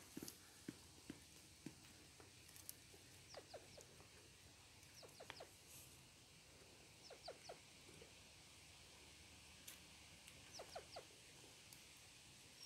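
Ruffed grouse making faint, quick clucks in clusters of three or four, about five times over the stretch.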